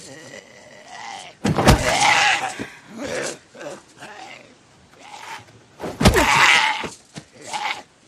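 A zombie growling and snarling in two loud rough outbursts, each opening with a heavy thud, with quieter gurgling growls between them.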